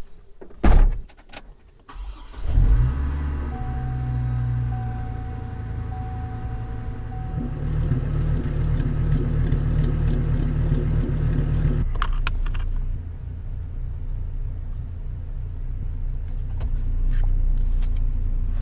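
Two sharp knocks, then a GMC Canyon pickup's engine with a modified exhaust starts about two and a half seconds in and settles into a steady idle. A steady chime tone sounds for a few seconds just after the start. The sound changes about twelve seconds in, and the exhaust keeps running steadily after that.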